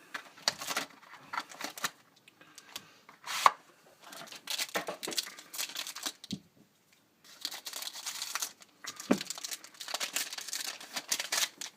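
Hockey card boxes and packs being torn open by hand: irregular tearing and crinkling of wrappers and packaging in short bursts, with one sharp tear or snap about three and a half seconds in.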